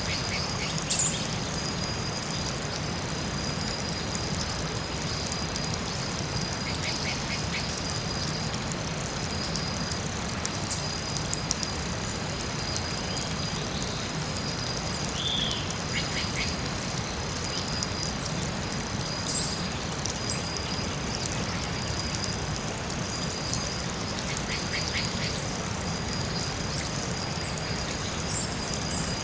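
Forest soundscape: a steady high insect drone over a low steady rumble, with birds giving brief high calls about every nine seconds and a few short rattling trills.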